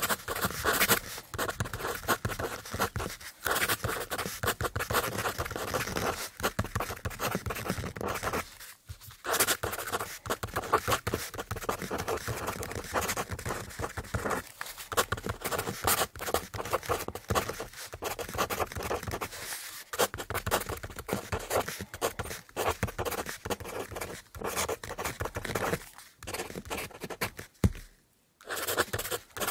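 Fast handwriting on paper: a writing tip scratching in quick, dense strokes, broken by a few short pauses.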